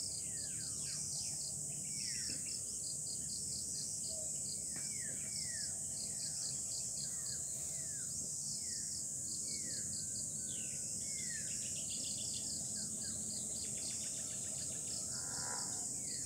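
Steady high-pitched insect chorus with rapid chirping, and a bird repeating short downward-sliding calls about once a second over it.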